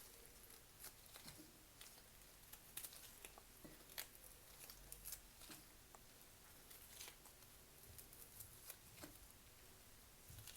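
Near silence with faint scattered clicks and light rustling from handling kitchen things.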